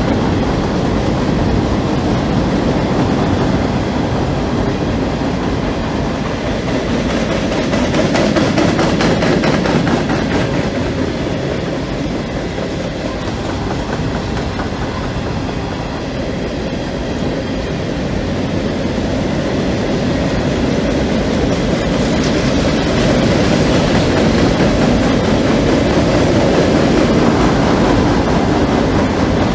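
A CSX freight train's empty coal hopper cars rolling past at track speed on welded rail: a steady rumble of steel wheels on the rails.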